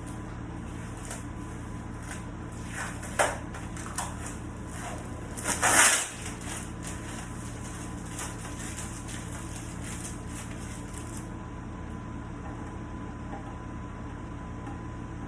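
Tape being peeled off a cured epoxy pour on a wooden tabletop, crackling and ripping, with a sharp snap about three seconds in and a louder, longer rip about six seconds in; the crackling dies away in the last few seconds over a steady shop hum.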